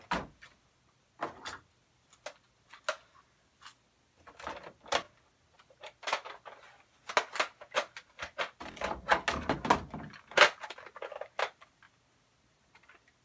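Irregular clicks, knocks and rustling from someone moving about and handling objects, busiest and loudest between about 7 and 11 seconds in.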